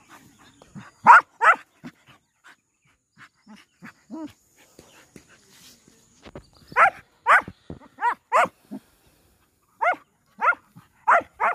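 Dogs play-fighting, with about ten short, sharp barks in quick clusters: two about a second in, then two groups of four in the second half.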